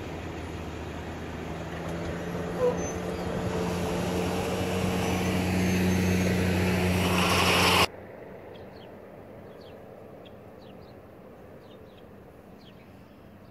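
A motor vehicle's engine running as it approaches, with a steady low hum that gets louder over about eight seconds and then cuts off suddenly. Faint bird chirps follow over a quiet outdoor background.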